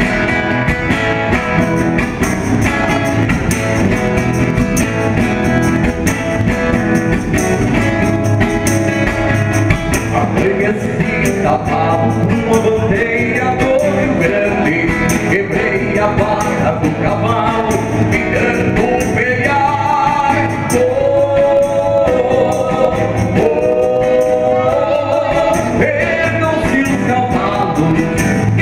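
Live acoustic guitar with a shaken tambourine keeping the beat. Men's voices sing the melody from about eleven seconds in.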